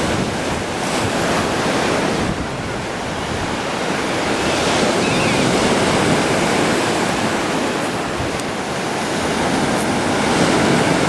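Black Sea surf breaking and washing on the shore, a loud steady wash that swells and eases, with wind buffeting the microphone.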